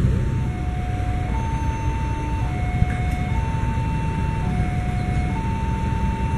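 Railway level-crossing warning alarm sounding its two-tone electronic signal, a higher and a lower tone alternating about once a second and starting about half a second in, the warning that a train is approaching. Beneath it runs a steady low engine rumble.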